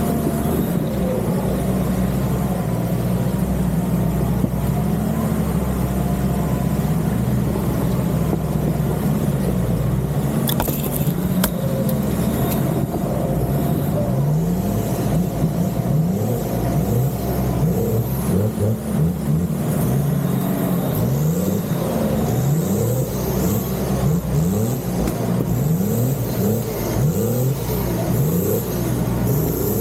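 Off-road 4x4 engine running steadily, then from about halfway blipped up and down over and over in short revs, as when working over rough terrain. A couple of sharp knocks come about a third of the way in.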